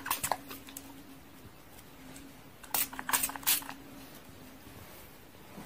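Fingers rubbing and parting hair on a scalp close to the microphone: a couple of brief crackling rustles at the start and a quick cluster of four about three seconds in, over a faint steady hum.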